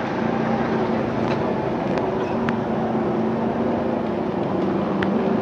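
Racing motorcycle engines running steadily in a continuous drone, with a few sharp clicks about a second, two seconds and five seconds in.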